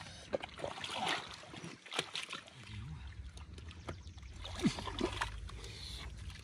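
Water sloshing and splashing in irregular bursts; a low steady rumble comes in about three seconds in.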